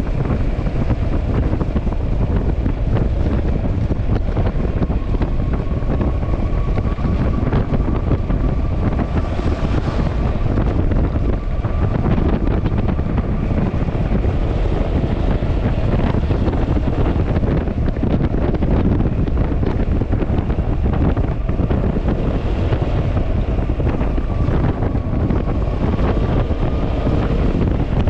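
Wind buffeting the microphone while riding a Yamaha Xmax scooter, with the scooter's engine running steadily underneath and a faint steady whine.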